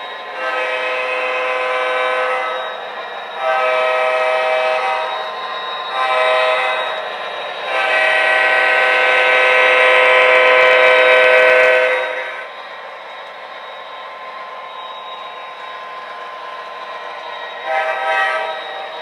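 Digital diesel horn from the Proto-Sound 3.0 sound system of an MTH Premier O-scale SD50 model locomotive, sounded in the long-long-short-long grade-crossing pattern, with the last blast held longest and one short toot near the end. A steady diesel engine sound runs under and between the blasts.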